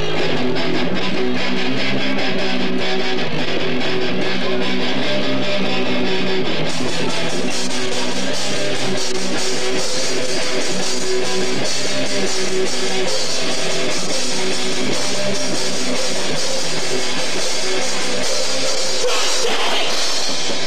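Live rock band playing a song, electric guitar to the fore with drums, as a loud, lo-fi recording off an old VHS tape. The sound gets brighter and fuller about seven seconds in.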